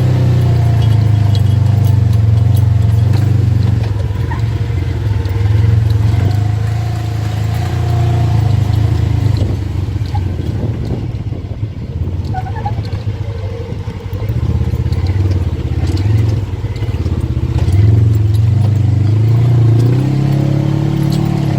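ATV engine running while being ridden, its pitch and level rising and falling with the throttle and easing off for a few seconds midway.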